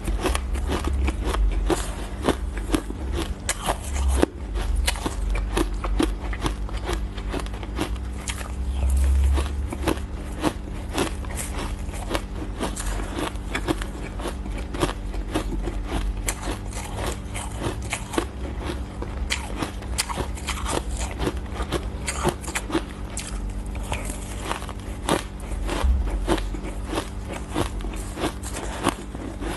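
Ice being bitten and chewed close to the microphone: dense, irregular crunching and cracking, with a heavier bite now and then.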